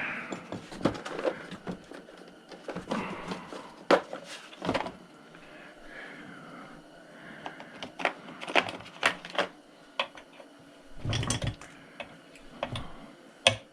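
Metal hand tools and sockets clinking and clattering as they are picked through and handled, with irregular clicks and a few heavier knocks.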